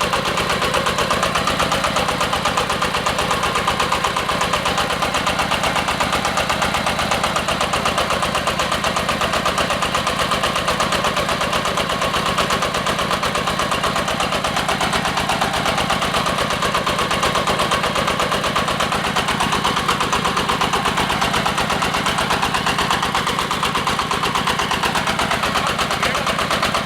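Diesel engine of a hydraulic water well drilling rig running steadily, with a fast, even knocking beat.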